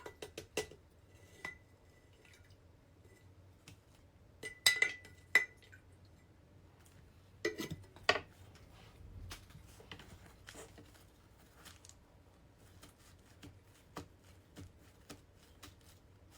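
Small hard objects clinking and tapping as they are handled on a tabletop: scattered light clicks, with a louder cluster of ringing clinks about five seconds in and another few knocks about eight seconds in.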